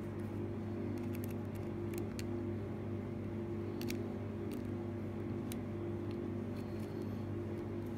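Faint, irregular light clicks of metal lock picks working the pins inside a Mindy A16-60 padlock, over a steady low hum.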